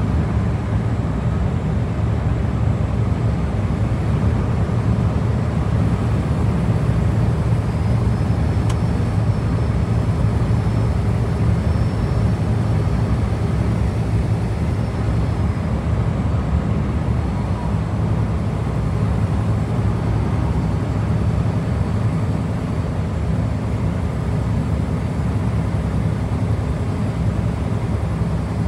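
Scania V8 diesel truck engine running steadily on the road, a constant low drone with tyre and road noise.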